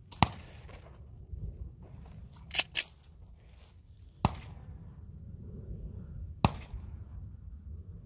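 Three shots from a Glock 33 subcompact .357 SIG pistol fired over a chronograph, the first right at the start, the next about four seconds in and the last about six and a half seconds in. Two quick sharp clicks come about two and a half seconds in.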